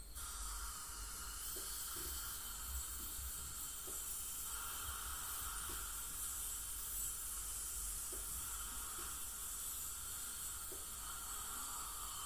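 Dental ultrasonic scaler running in the mouth during teeth scaling: a steady hiss of its water spray that switches on at the start, with a few faint ticks.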